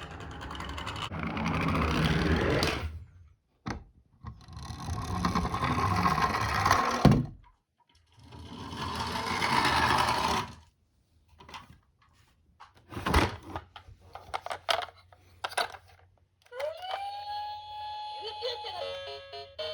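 Die-cast toy cars rolling down a slope, three runs: each rumbles louder as it speeds up and ends abruptly, one with a sharp knock. Scattered clicks and knocks follow, then near the end a short electronic jingle starts with a rising tone.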